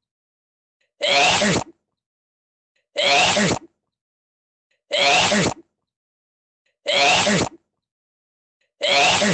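A person's sneeze, the same sneeze repeated at even intervals about every two seconds, five times, with complete silence between.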